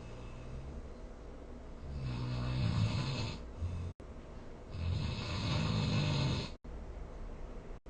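A sleeping person snoring: two long snores about three seconds apart, each a low rattle with a breathy hiss. The second cuts off abruptly.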